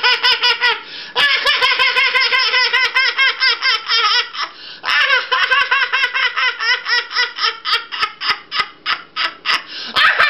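High-pitched, cartoonish laughter from a puppeteer voicing a puppet, in long bouts with short breaks about a second in and again near the middle; the last bout breaks into quick separate ha-ha pulses.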